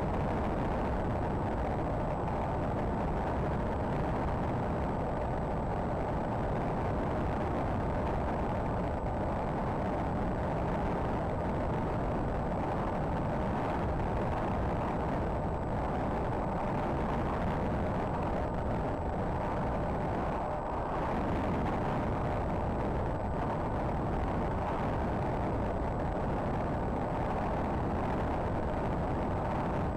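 Steady wind rush over the microphone of a small camera riding on a Z-51 Predator RC plane in flight, with the steady hum of the plane's electric motor and propeller underneath.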